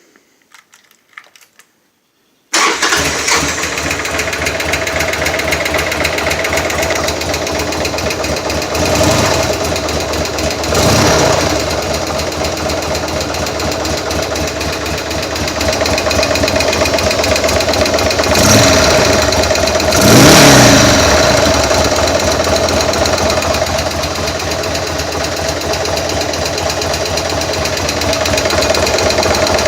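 A Buell M2 Cyclone's air-cooled 1203 cc V-twin starts up about two and a half seconds in and runs at idle, with four short throttle blips, about two and two near the middle. It makes a knocking noise that the owner suspects is a sticky lifter, with the oil a little low.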